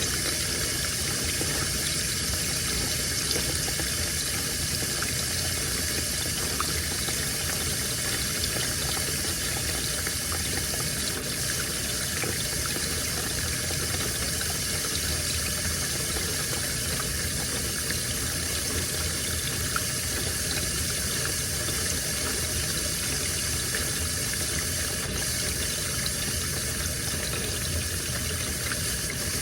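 Washing machine filling with a load of laundry: a steady rush of water running into the drum.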